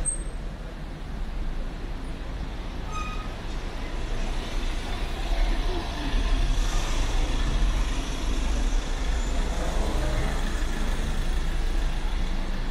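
Street traffic: a queue of cars and a box truck idling and creeping along a narrow street, with a steady low engine hum that grows louder about halfway through.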